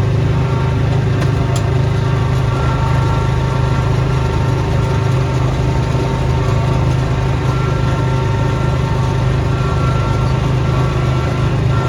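Small gasoline engine of a snowblowing machine running steadily at constant speed, with a faint higher whine that comes and goes above the engine hum.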